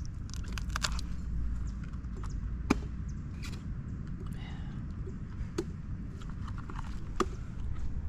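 Scattered sharp knocks and clicks on a green coconut as it is opened for its soft jelly meat, over a steady low rumble. One knock, about two and a half seconds in, is louder than the rest.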